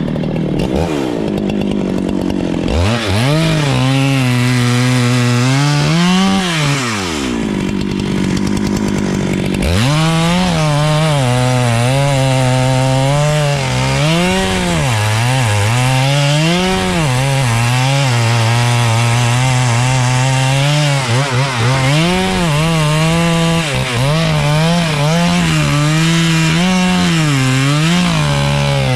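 Chainsaw cutting wood at full throttle. The engine pitch keeps sagging under load and climbing back, with a brief drop toward idle about eight seconds in.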